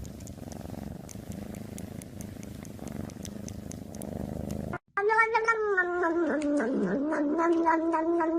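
A cat purring: a steady low rumble. After a short break about five seconds in, a long, drawn-out pitched wail starts, dipping and wavering in pitch.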